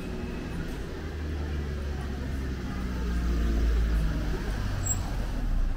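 Street traffic: a motor vehicle's engine rumbling close by, growing louder about three seconds in and falling away near the end as it passes.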